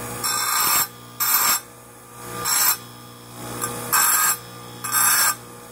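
Electric chain grinder's motor humming steadily while a pumice stone is pressed against the spinning grinding wheel in five short strokes, each a harsh scraping hiss, about one a second. The stone is cleaning built-up grit off the wheel and keeping its edge round.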